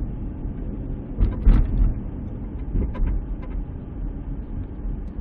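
Minivan cabin road rumble over bumpy pavement, with a loud clunk from the front suspension about a second and a half in and a smaller knock around three seconds. It is the passenger-side front-end noise, which the owner suspects comes from the strut.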